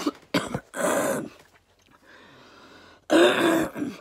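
A woman with a sore throat coughing: a few quick coughs at the start, a longer cough about a second in, and another longer, rougher cough near the end.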